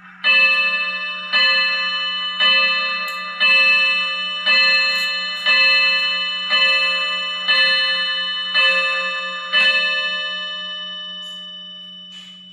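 Vintage mechanical wall clock striking the hour: ten ringing strokes about a second apart, the last one fading away slowly.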